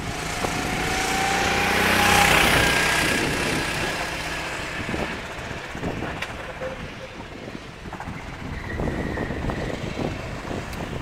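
Sodi RT8 rental kart's four-stroke engine passing by on the wet track, the engine note and the hiss of the wet tyres swelling to their loudest about two seconds in and then fading away. After that, quieter engine noise of karts farther round the circuit.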